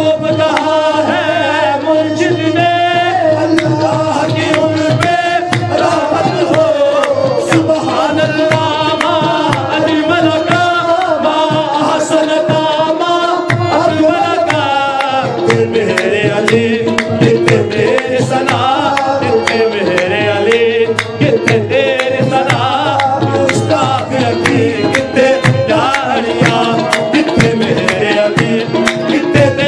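Qawwali music: tabla in a fast, dense rhythm under long held harmonium notes, with a wavering singing voice.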